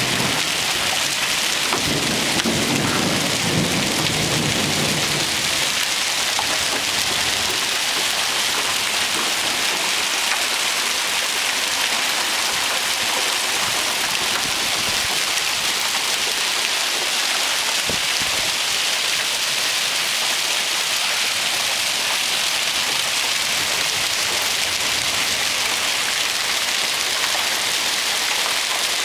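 Heavy rain mixed with hail in a summer storm, a steady dense hiss of it striking pavement and a quilt-covered car. A low rumble of thunder comes in a couple of seconds in.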